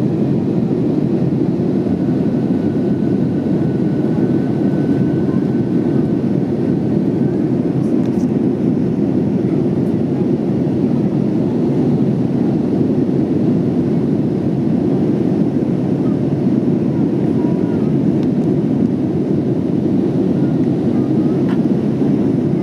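Steady rumbling roar of an Airbus A321's engines and airflow heard inside the passenger cabin, with a faint thin whine a couple of seconds in that fades out after a few seconds.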